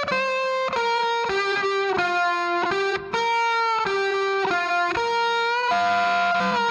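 Background music: a single melody line of held notes, one at a time, changing pitch every half second or so, with a brief break about three seconds in.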